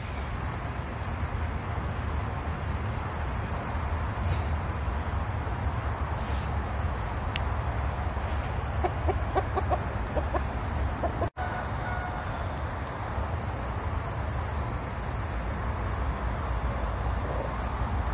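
Light Brahma rooster giving a quick run of low clucks about halfway through, over a steady high insect drone and a low steady rumble.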